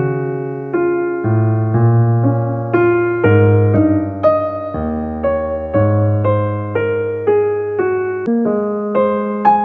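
Background piano music: a slow run of struck chords and single notes, each fading after it is played, over held low bass notes.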